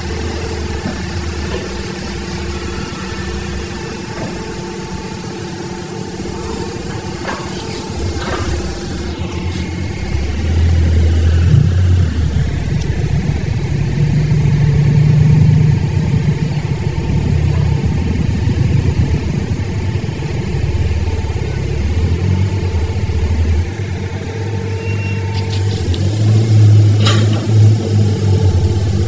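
Hydraulic excavator's diesel engine running, swelling louder as the bucket works, about a third of the way in, again midway and near the end. A few faint clicks over the top.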